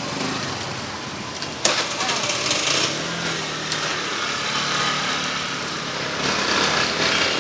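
Meat skewers sizzling on a flaming charcoal grill while metal tongs clack against the grate and skewers, with one sharp click about a second and a half in. A small engine runs steadily underneath.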